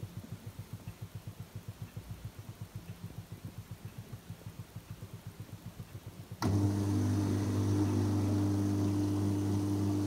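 Tabletop dishwasher at the start of its cycle: a low hum pulsing fast and evenly, about nine times a second, then about six seconds in a pump switches on with a sudden, louder steady hum as the machine fills with water.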